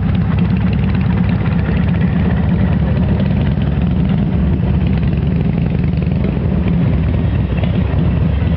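Motorcycle engines idling, a steady low running sound that holds level throughout.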